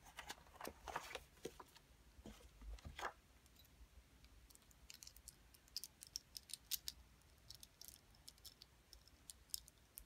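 Faint tapping by long fingernails: a few taps and scrapes on a cardboard sign in the first three seconds, then from about five seconds in a run of light, sharp clicks as the nails tap against large metal rings set with stones.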